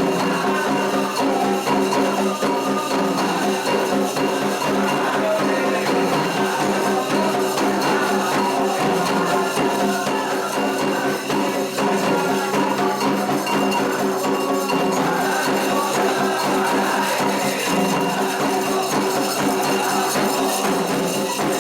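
Candomblé ceremonial music: hand percussion playing a dense, steady rhythm over sustained held tones.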